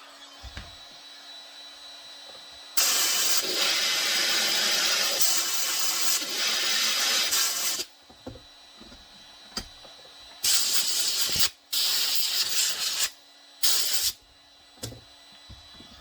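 Heat gun blowing hot air in bursts: one long run of about five seconds, then three shorter bursts near the end. Between the bursts a faint low hum and a few light clicks.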